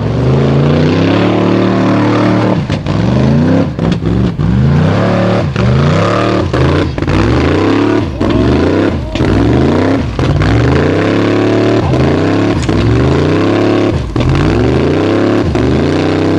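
Loud engine of a modified off-road competition vehicle revving hard again and again, the pitch climbing and then dropping sharply about once a second, with brief cut-outs between the revs.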